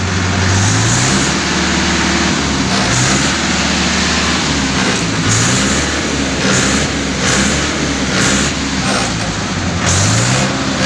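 Mahindra 585 DI tractor's four-cylinder diesel engine running, its revs rising and falling back several times.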